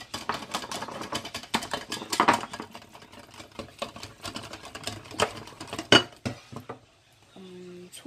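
Wire whisk beating eggs in a glass container: rapid clicking and scraping of metal wires against glass. It stops about six and a half seconds in, just after a sharper clink, and a short voice follows near the end.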